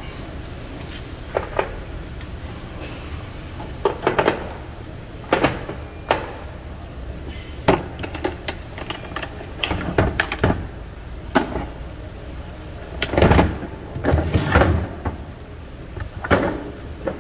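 A series of irregular knocks and clunks, like things being handled or set down, with the loudest thuds about two-thirds of the way through, over a steady low background hum.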